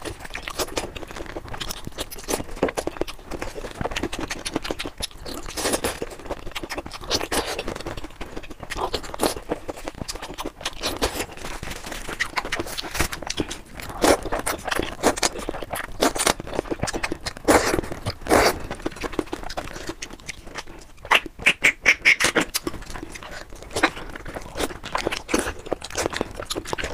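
Close-miked eating: noodles in chili sauce being slurped up through the lips, with wet chewing and smacking in between. The slurps come irregularly, a few of them louder in the middle, with a quick run of short ones a little past two-thirds of the way through.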